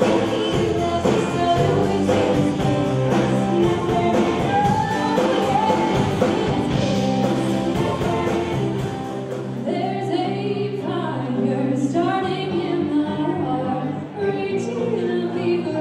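Live band music with women singing in harmony over drums and a steady ticking hi-hat. A little over halfway through, the drums drop away and the voices carry on with held notes over a lighter backing.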